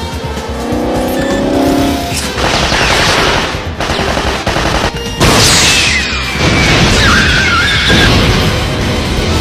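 Film action soundtrack: gunfire and a car's engine with squealing tyres, a loud blast about five seconds in from a car exploding, all over orchestral music.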